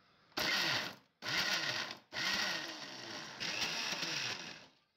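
Preethi Zodiac mixer grinder running in four short bursts of about a second each with brief gaps, grinding the chutney ingredients (coriander, mint, curry leaves, sautéed chillies, onion, tomato and tamarind) to a paste.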